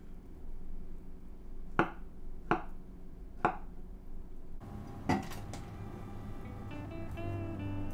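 Chef's knife cutting avocado on a wooden cutting board, knocking on the board three times about a second apart. About five seconds in there is a clink as the avocado pieces are pushed off the knife into a steel saucepan of soup, and gentle guitar music fades in near the end.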